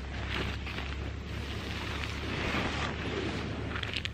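Wind noise on the microphone: a steady low rumble under an even hiss, with a couple of faint clicks near the end.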